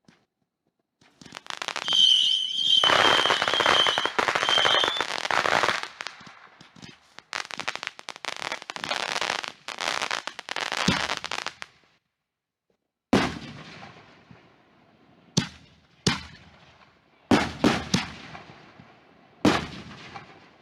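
Consumer fireworks going off: a high whistle over dense crackling for a few seconds, a second stretch of dense crackling, then about half a dozen separate sharp bangs, each with a fading tail.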